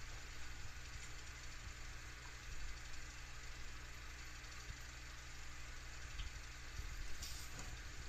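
Steady low background hum under an even hiss, with a few faint low bumps.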